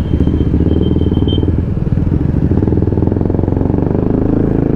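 Motorcycle engine running steadily while being ridden along the road, heard from the rider's own seat.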